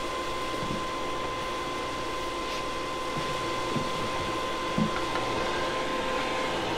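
Steady whirring drone of a small motor, with a thin constant whine and a few faint knocks.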